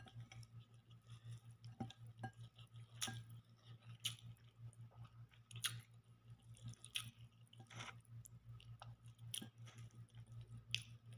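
Faint chewing and eating by hand, with scattered sharp clicks and small wet sounds as fingers tear at chicken and rice in a glass dish, over a steady low hum.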